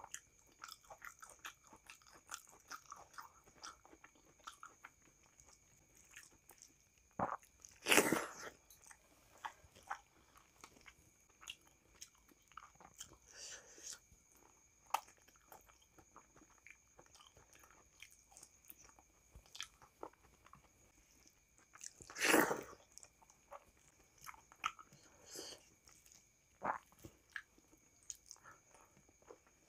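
Close-up eating sounds of a person chewing and biting food, with many small wet mouth clicks and smacks and two louder bites about 8 and 22 seconds in. A faint steady high whine runs underneath.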